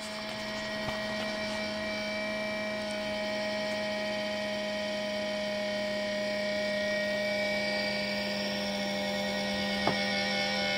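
Steady mechanical hum and whine made of several unchanging tones, the abnormal noise of a running machine, with a single sharp click about ten seconds in.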